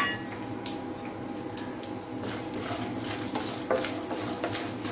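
Hot oil and ghee sizzling in a nonstick frying pan as chana dal, urad dal and peanuts fry, with a wooden spatula stirring and scraping through them in light scattered clicks. A short clink sounds right at the start.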